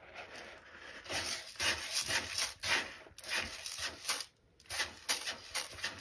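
Kittens scratching and digging in granular cat litter in a plastic litter box: a quick run of scraping, rustling strokes, several a second, with a short pause about four seconds in.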